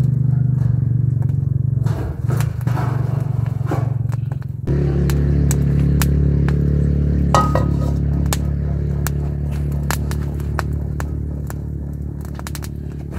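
Wood fire crackling with scattered sharp pops, under a loud steady low drone that shifts suddenly about four and a half seconds in and slowly fades near the end. A brief metallic ring about seven seconds in.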